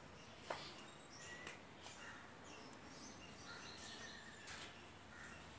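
Faint background with scattered short bird chirps and a single small click about half a second in.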